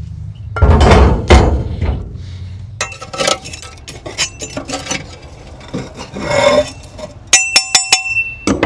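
Heavy cast iron grill grate and divider being pulled out of a kamado grill, metal clanking and scraping, with a few sharp ringing metal clinks near the end.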